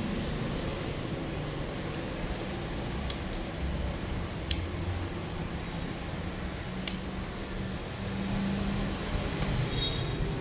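Handheld hot-air blower running steadily with a fan-like rush, heating the phone's charging connector to loosen it. A few sharp light clicks come over it.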